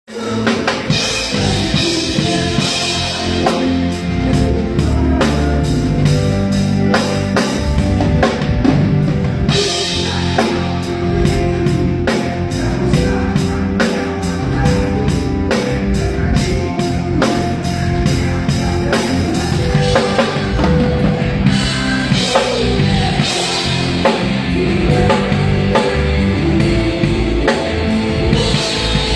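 Drum kit played through a rock song, with the full band behind it.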